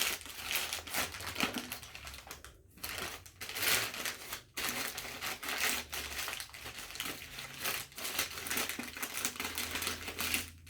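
Brown paper bag being crumpled and crinkled by hand around a bottle: continuous crackling paper with a couple of brief pauses.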